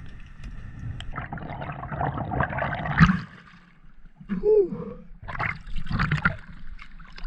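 Camera coming up from underwater to the ocean surface: muffled underwater rushing that builds to a loud splash about three seconds in as it breaks the surface, then water sloshing and splashing around it at the surface.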